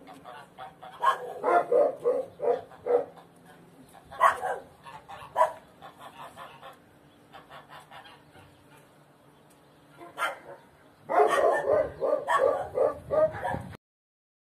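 A dog barking in bouts: a quick run of barks in the first few seconds, a few single barks, then a longer burst of barking near the end that stops abruptly.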